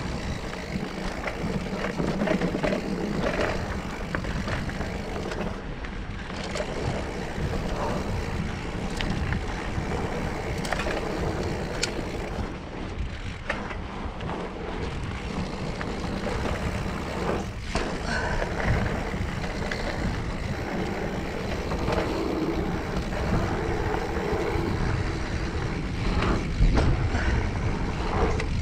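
Mountain bike riding down dirt singletrack: knobby tyres rolling over dirt and rocks in a steady rush of noise, with frequent clicks and clatters from the bike over bumps.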